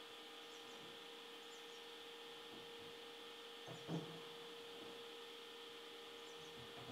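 Low, steady electrical hum of workshop machinery, with a single wooden knock about four seconds in as a board is handled on a wheeled trolley.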